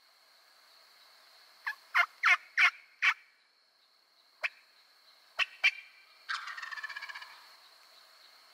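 Osceola wild turkey gobbler gobbling once, a rattling call lasting about a second, some six seconds in. It is preceded by a run of short, sharp turkey calls in two clusters.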